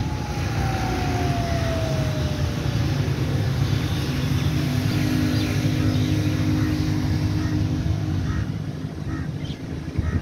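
A motor vehicle passes nearby, its engine pitch falling over the first few seconds, over a steady low rumble of wind on the microphone. A few short bird chirps come in the second half.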